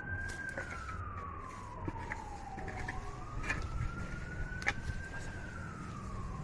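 A siren wailing, a single tone rising and falling slowly about once every five seconds. A couple of short sharp knocks from a shovel blade digging into soil sound under it.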